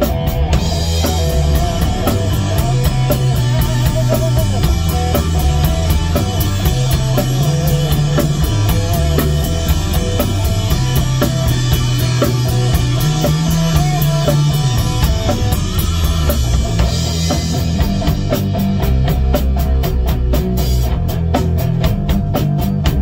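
Rock band playing live, instrumental with no vocals: electric guitar and bass over a drum kit. For most of the passage the cymbals ring on in a continuous wash, and near the end this gives way to a tighter, more clipped beat.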